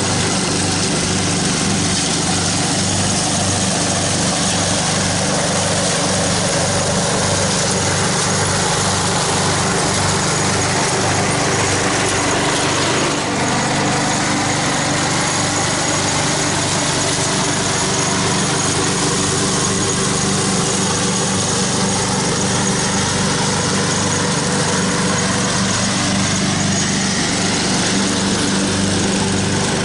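Craftsman riding lawn mower running steadily under load as it mulches dry leaves. It drives past close by about halfway through.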